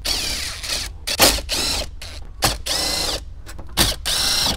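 Cordless drill-driver running in several short bursts, each whine winding up and back down, as it backs out the 7 mm screws holding the factory radio in the dash.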